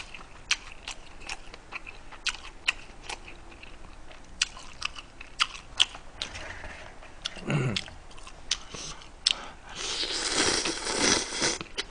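Close-miked eating sounds from a man: chewing with many sharp mouth and chopstick clicks, a brief low vocal sound about two-thirds of the way in, then loud slurping of instant cup ramen noodles for about a second and a half near the end.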